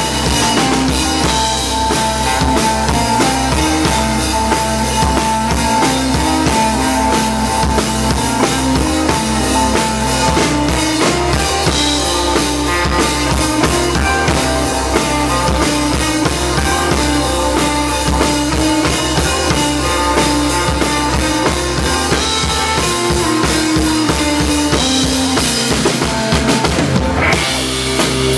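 A live band playing loud, with a full drum kit driving the beat under electric guitar. Near the end there is a brief break before the band comes back in.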